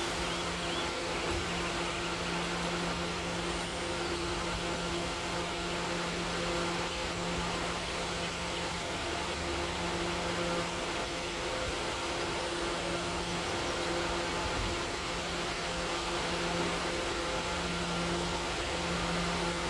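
Steady electrical hum of a subway train standing at the platform, its low drone swelling and fading every second or two.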